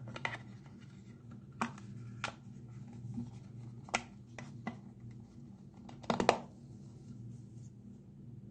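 Hands handling a phone case and its packaging: a series of sharp, separate clicks and taps, with a louder cluster of clicks about six seconds in.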